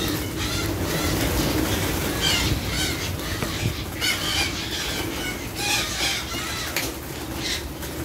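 A large flock of parakeets calling, many harsh, short squawks and screeches overlapping and repeating.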